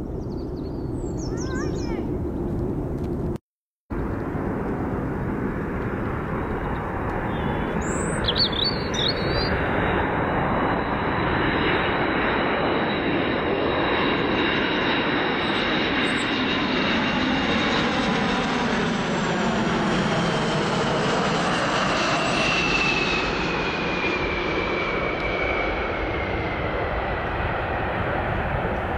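Large jet aircraft's engines running loud as it passes, the roar building and a high whine falling in pitch as it goes by; the sound cuts out for a moment about three seconds in.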